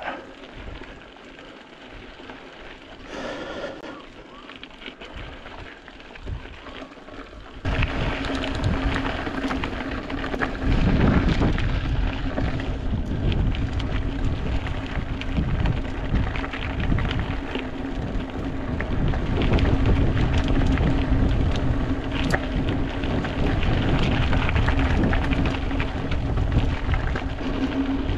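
Mountain bike riding on rough ground heard through an action camera's microphone: tyre rumble and wind noise, jumping abruptly much louder about eight seconds in and staying loud, with a steady hum underneath.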